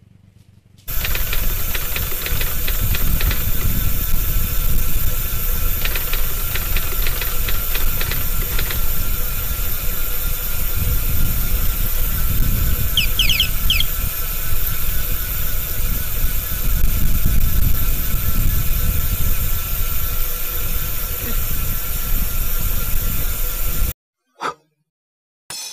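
Wind rushing and buffeting over the microphone while a bicycle rides along a paved road, with a short high chirp about halfway through.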